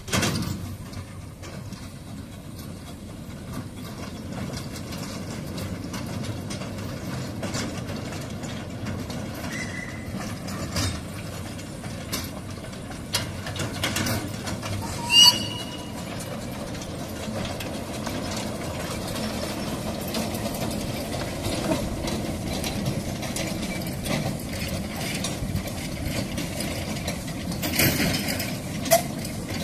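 Narrow-gauge steam locomotive running past with its train of small wagons, wheels rumbling and clicking on the rails, the noise slowly growing. About halfway through there is one brief sharp high squeal.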